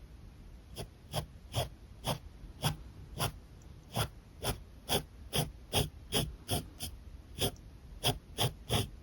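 A dog barking over and over, short sharp barks about two or three a second, starting about a second in.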